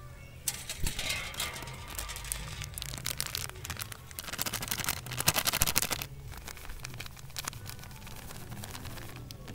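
Plastic bag of powdered fish bait crinkling as it is handled and shaken out over a bowl. The crackling starts about half a second in, is loudest around five to six seconds, then turns softer.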